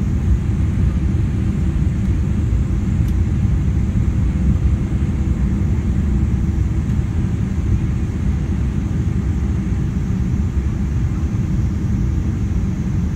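Steady low rumble of a Boeing 777-300 airliner's engines and slipstream, heard inside the passenger cabin during the descent to land.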